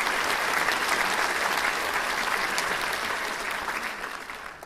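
Audience applauding: a dense patter of many hands clapping, fading out near the end.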